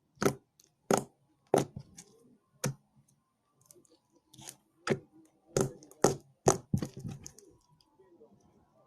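Sticky slime pressed against a plastic tennis racket's strings and pulled away, giving about a dozen sharp popping snaps at irregular intervals with short quiet gaps between them.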